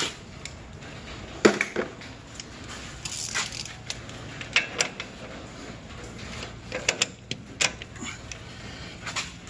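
Scattered sharp metallic clicks and clinks of hand tools working on the lower mounting nut of a front shock absorber, in small clusters about a second and a half in, around four and a half seconds, and again around seven seconds.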